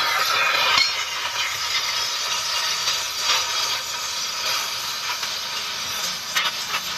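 Gas welding torch flame hissing steadily, with a few faint clicks.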